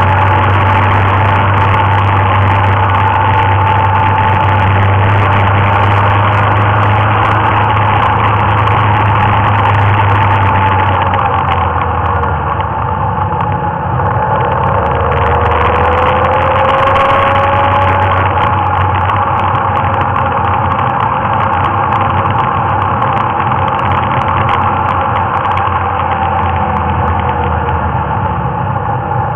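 Motorcycle engine running on the move. The engine note drops about a third of the way in, then climbs again a few seconds later.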